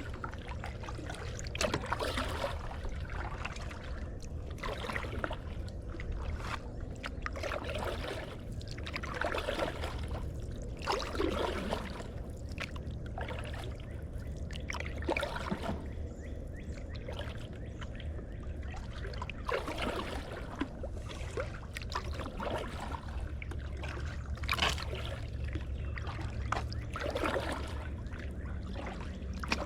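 Kayak paddle strokes in creek water: the blade splashes in and out every couple of seconds at an uneven pace, with water trickling between strokes. A steady low rumble runs underneath.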